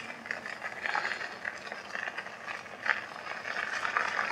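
E-bike tyres rolling over fine gravel: a steady crackling crunch with many small scattered ticks.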